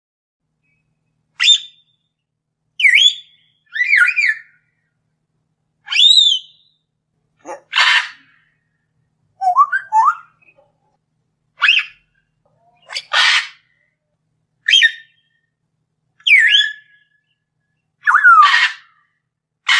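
Lovebirds calling: about a dozen separate high squawks, each under a second, some sliding sharply in pitch and some harsher screeches, with short silences between.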